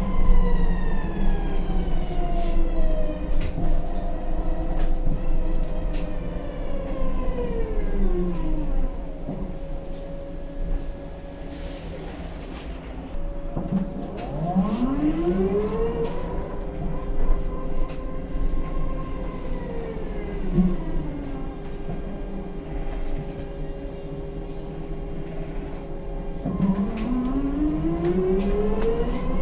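Loud electric traction motor of a Switch MetroCity (V870MC EV) battery-electric bus, heard from inside the saloon. Its whine falls in pitch as the bus slows, is quieter for a few seconds, then rises steeply as it pulls away, falls again as it eases off, and starts rising again near the end.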